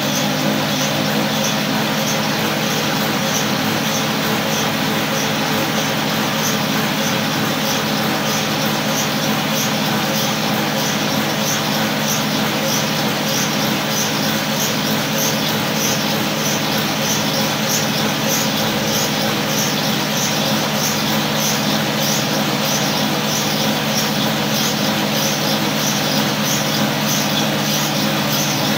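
Electric cotton candy machine running, its spinning head's motor giving a loud, steady hum.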